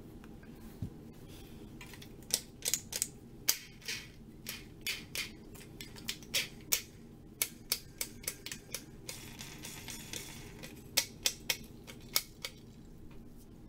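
Irregular sharp clicks and knocks of a hard plastic printer part being handled and turned, a few dozen over about ten seconds, with a short rustle about nine seconds in.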